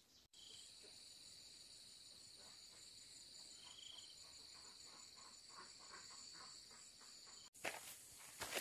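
A steady, high-pitched chorus of insects chirring, in the manner of crickets, in a forest valley. Near the end it cuts away to crunching footsteps on dry, stony ground.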